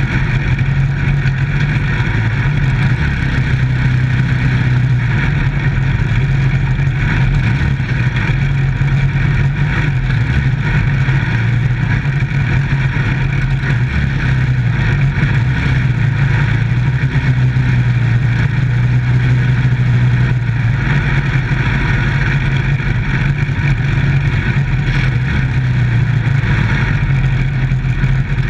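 Dirt-track microstock race car engine running hard through laps, heard from inside the cockpit, with a fairly steady engine note that dips slightly now and then, over wind and tyre noise.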